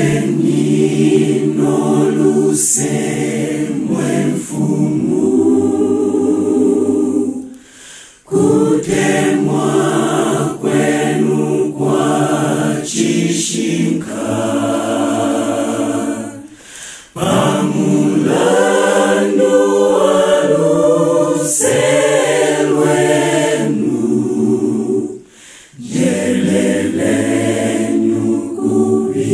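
A choir singing a hymn a cappella in several-part harmony, in phrases broken by short breaths about eight seconds in, midway through and near the end.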